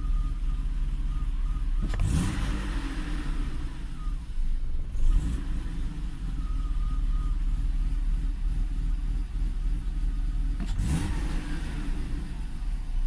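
BMW E34's M50B25 2.5-litre straight-six running at idle, blipped up in revs twice, about two seconds in and again near the end, each time falling back to idle.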